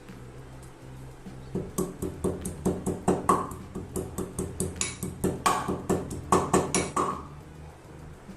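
Kitchen utensils knocking rapidly and repeatedly, about four to five sharp knocks a second, starting a second and a half in and stopping a second before the end, over a low steady hum.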